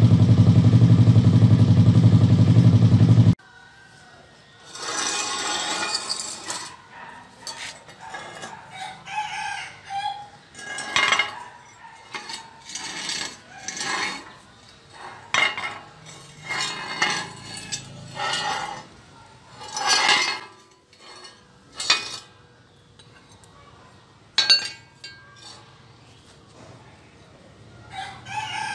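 A homemade T-Rex three-wheeler's 175cc engine running loud and steady, then cutting off abruptly about three seconds in. After that a rooster crows several times, with light clinks of steel parts being handled.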